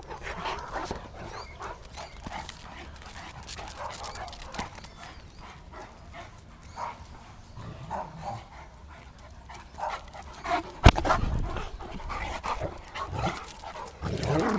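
Dog sounds: short, scattered noises from a dog, with one sharp knock about eleven seconds in that is the loudest thing heard.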